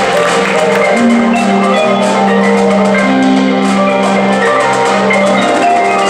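An indoor percussion ensemble's front ensemble of marimbas and other mallet keyboards plays a flowing passage of quick ringing notes over a held low note.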